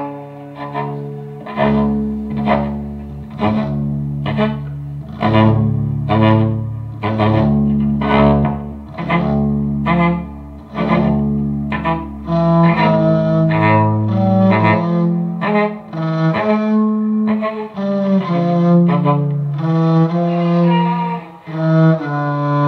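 Two cellos, one of them an electric cello, playing together. Sharply attacked notes repeat about twice a second over held low bowed notes, and about twelve seconds in the playing turns to longer sustained bowed notes.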